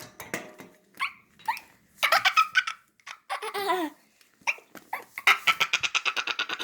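High-pitched, dog-like yips and whines, several falling in pitch, spaced about a second apart, then a fast run of rapid yaps over the last second and a half.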